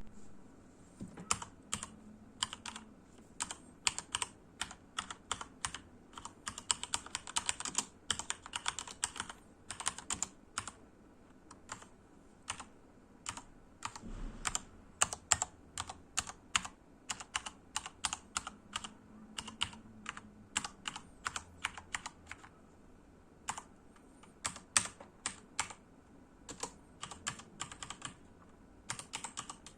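Typing on an HP Omen Encoder mechanical keyboard with Cherry MX Red linear switches: irregular key clacks, with a dense run of fast keystrokes about a third of the way in and a few short pauses.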